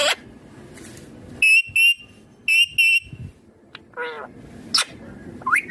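Indian ringneck parakeet screeching: four short, shrill, piercing calls in two quick pairs, then a lower wavering call and a rising squawk near the end.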